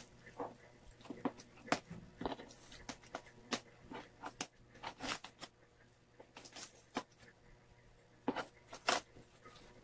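A bubble-wrapped parcel being handled and cut open with scissors. The plastic wrapping gives irregular crinkles, crackles and snips.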